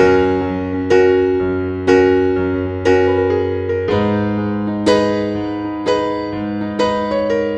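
Background music: slow, gentle piano with a note or chord struck about once a second over held bass notes.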